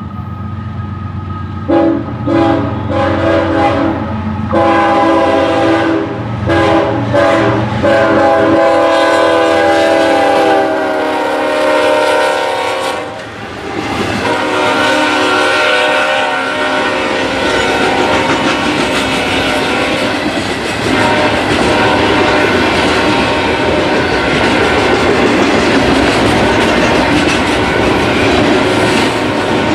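GE ES44AC diesel locomotive's air horn sounding a run of short blasts, then longer ones and a long held blast whose chord sags slightly in pitch as it passes, cutting off about thirteen seconds in. After that, the steady rumble and clickety-clack of the autorack freight cars rolling by.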